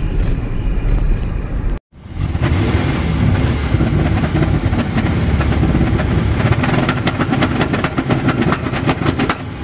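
A truck driving, its engine running under a dense, fast rattle of repeated clicks and clatter. The sound drops out abruptly for a moment about two seconds in.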